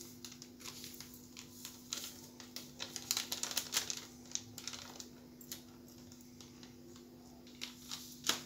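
Scattered light clicks and rustles of spice containers being handled while seasonings are added to the chicken-and-egg mixture, with a single sharper click near the end as a hand takes up the fork. A steady low hum runs underneath.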